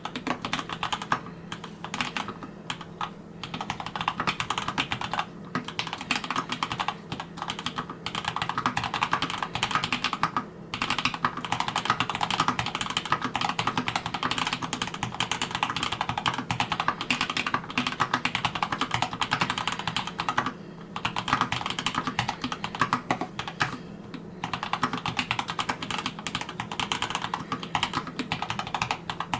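Continuous fast typing on a mechanical keyboard with lubed Gateron Yellow linear switches, keystrokes clattering densely with a few brief pauses, picked up through a camera's built-in microphone over a steady low hum.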